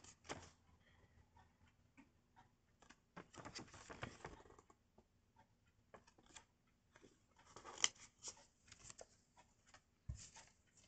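Small paper pocket timetable cards being handled and shuffled between fingers, with faint rustles and clicks in several short bursts. A soft low thump comes near the end.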